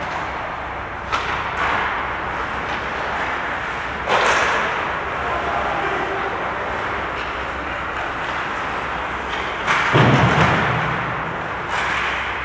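Ice hockey play: a steady wash of skates and sticks on the ice, broken by several thuds against the boards, the loudest about ten seconds in.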